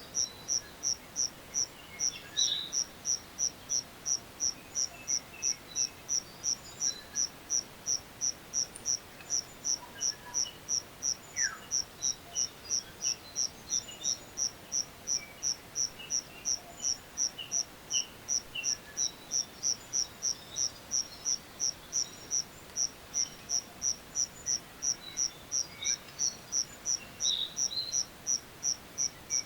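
A grass insect chirping in a steady rhythm, about two and a half high chirps a second, with faint scattered bird calls behind it.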